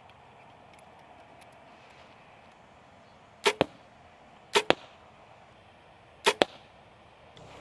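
Bowtech Carbon Icon compound bow shooting arrows three times, about a second or two apart, each shot a sharp double crack.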